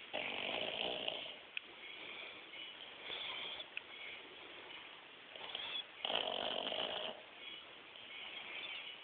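Pug snoring in its sleep: two loud snores about six seconds apart, each lasting about a second, with a fainter snore between them.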